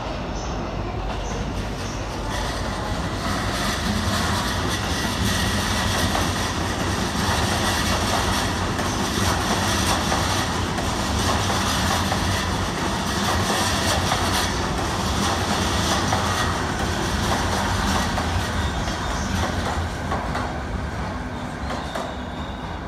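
JR East E233-series electric commuter train running past and pulling into the platform, its wheels clacking over the rail joints. The running noise swells as the cars go by and eases near the end as the train slows.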